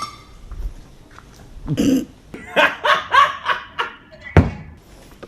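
A man burps about two seconds in, then laughs in a quick run of short ha-ha sounds. There is a short ringing clink at the start and a sharp knock near the end.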